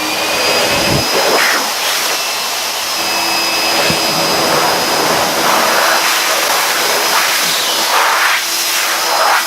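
Vacuum cleaner running with a steady high motor whine, sucking at a compact camera's extended lens to pull dust out. The air noise surges a few times as the nozzle moves against the lens, and the motor cuts off at the end.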